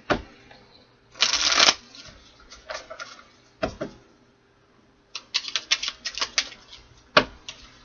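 A deck of tarot cards being shuffled and handled. There is a half-second rush of riffling about a second in, then scattered card snaps, a quick run of flicks a little past halfway, and one sharp snap near the end.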